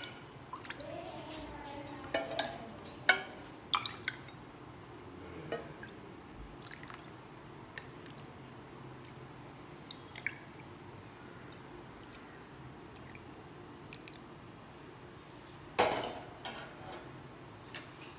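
Milk being poured from a jug into glasses, with a few light clinks and knocks of the vessels against glass. A louder knock comes near the end.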